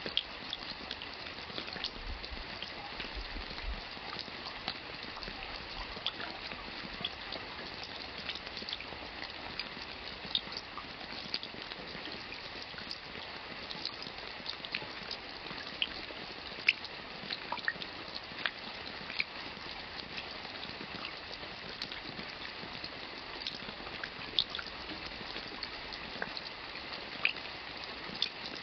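Steady rain: an even hiss with many separate water drops landing sharply at irregular moments.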